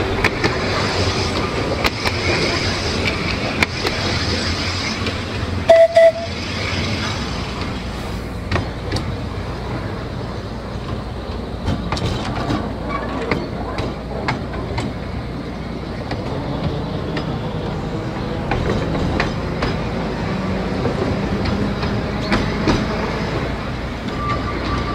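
Electric narrow-gauge double-deck tramcar of the Seaton Tramway running steadily along the track, with sharp clicks as the wheels pass over rail joints and points. Heard from the open top deck, with wind on the microphone. About six seconds in, two short, loud hoots of the tram's horn.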